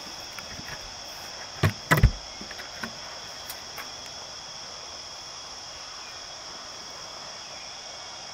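Steady chorus of crickets, with a few short knocks about two seconds in, the loudest two close together.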